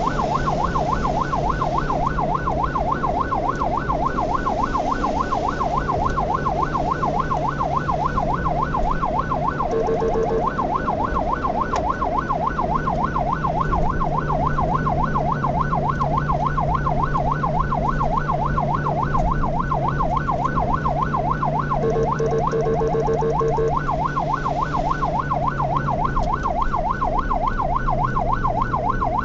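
Ambulance siren in a fast yelp, sweeping up and down several times a second without a break, over a steady engine drone. A horn sounds briefly about ten seconds in, and again in a few quick blasts around twenty-two seconds.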